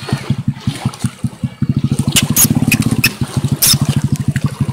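A small engine chugging steadily, about ten even beats a second, with a few sharp water splashes in the middle.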